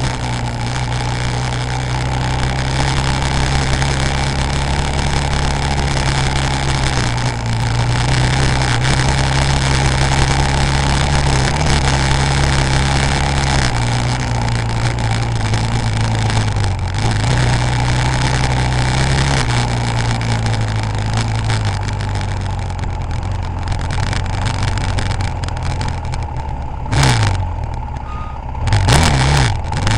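KTM 530 EXC single-cylinder four-stroke enduro engine running under load off-road, its note stepping up and down several times as the revs change. Near the end the revs are blipped twice in quick succession, rising and falling sharply.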